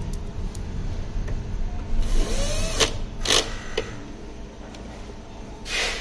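Cordless drill-driver motor running in short spells as it works screws on the coffee machine's frame, with a few short sharp noises about three seconds in.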